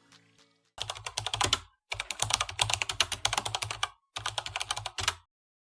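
Rapid typing on a computer keyboard in three quick runs of dense key clicks, the last ending about five seconds in. A plucked-music tail fades out just before the typing starts.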